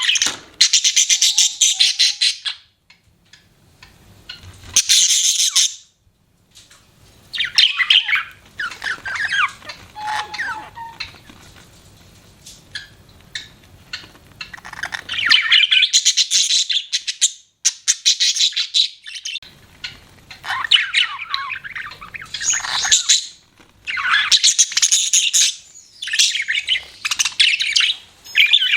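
Budgerigars chirping and chattering in bouts of rapid, high chirps a few seconds long, with short pauses between bouts.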